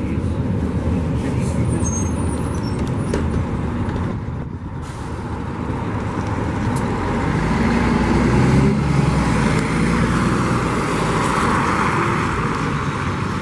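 Articulated Mercedes-Benz Conecto G city bus pulling away from a stop and driving past close by, its engine getting louder as it goes by, loudest about eight seconds in.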